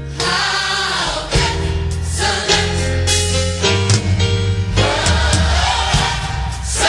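Gospel music: a choir singing with an instrumental backing of steady bass notes and a beat.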